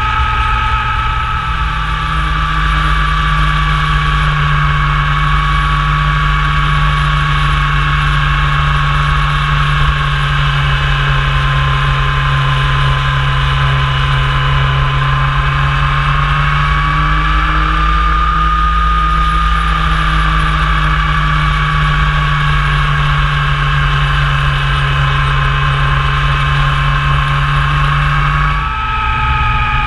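Motorcycle engine running at steady revs under way, its note holding nearly constant over a low rumble; near the end the level dips briefly and the engine note changes.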